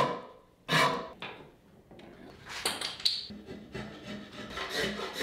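Hand rasp scraping across an Osage orange bow stave. There is one full stroke near the start, then a short higher-pitched scrape around the middle, then lighter strokes about two a second near the end.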